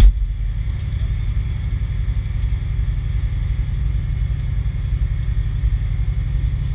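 Diesel engine of a 2003 Pierce Dash fire truck idling steadily, a low rumble heard inside the parked cab, with a sharp click right at the start.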